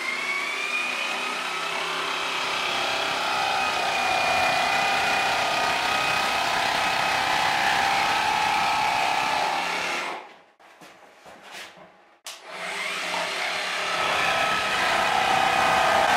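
Electric jigsaw cutting through a plywood board: the motor whines steadily over the blade's cutting noise for about ten seconds, stops, and starts cutting again about two seconds later.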